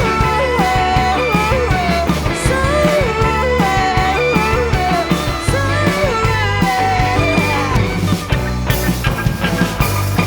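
A rock band plays an instrumental passage: a sliding lead melody over bass and drums, with cymbals washing near the end.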